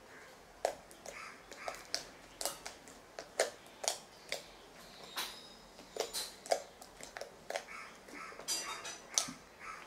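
Clear-glue jiggly water slime with glitter being pressed and squeezed by hand. It gives an irregular string of sharp, wet clicks and pops, with softer squelches between them.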